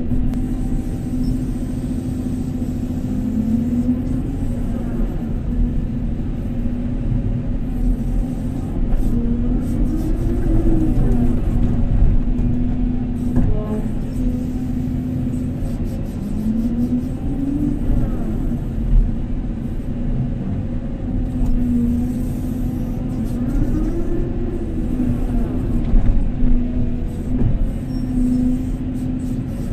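Volvo EC350DL excavator's diesel engine and hydraulics running steadily as the bucket digs into a pile of powdery material. The engine note rises and falls briefly every several seconds as the hydraulics take load.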